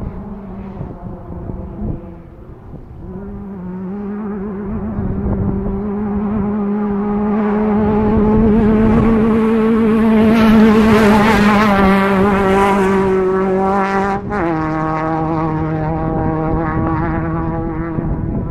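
An off-road race vehicle's engine running hard, growing louder over several seconds as it approaches. About fourteen seconds in its pitch drops suddenly as it goes past, and it carries on steadily at the lower pitch.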